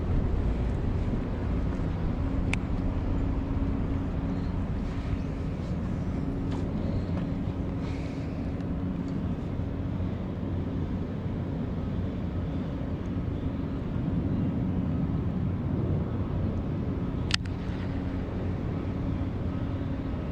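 A motor running steadily with a low hum, with a sharp click about two and a half seconds in and another louder one about seventeen seconds in.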